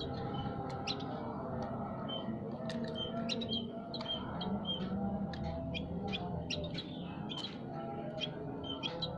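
Many small songbirds chirping and calling at once, with quick, sharp, overlapping notes. Under them runs a low, steady humming background.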